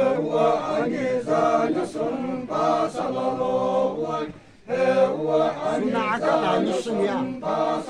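A group of men chanting a traditional song together, holding long syllables in several voices. There is a short break about four and a half seconds in, and then the chant picks up again.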